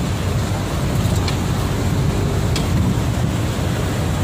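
Fast mountain river rushing through rapids over boulders: a steady roar.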